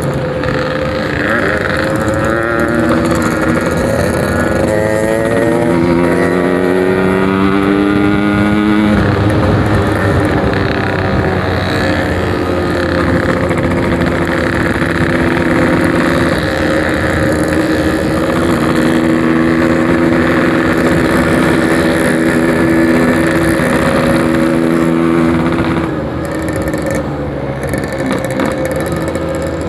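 Yamaha RX-King's 135cc single-cylinder two-stroke engine running through a Packing Power aftermarket exhaust while riding. The revs climb for several seconds and drop sharply about nine seconds in, as at a gear change. It then holds a steady pitch at cruising speed and eases off near the end.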